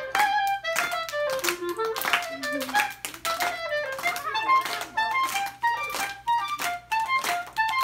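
Clarinet playing a lively melody of quick separate notes, with hand claps in between.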